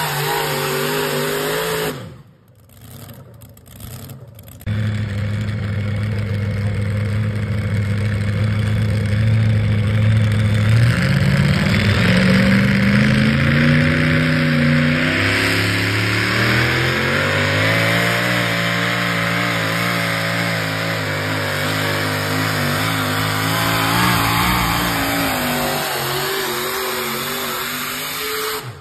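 Super modified 4WD pulling trucks' engines running hard at high revs while dragging a weight sled down a dirt track. After a short break about two to five seconds in, one engine holds a steady note, climbs in pitch about eleven seconds in, and stays high and wavering under the sled's load.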